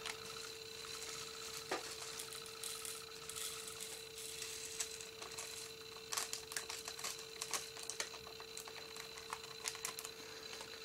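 Light, irregular clicking and rattling of small plastic resin diamond-painting drills being poured from their bag into a small plastic storage pot and the pot being handled, over a faint steady hum.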